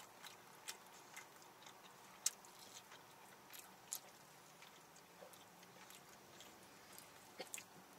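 Faint eating sounds: soft chewing and small mouth clicks from biting into fried chicken and sipping from a can. Scattered short clicks, the sharpest a little over two seconds in.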